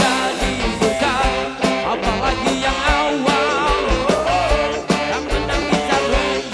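Live band playing amplified music on electric guitars, keyboard and drums, with regular drum hits under a lead melody that bends and wavers in pitch.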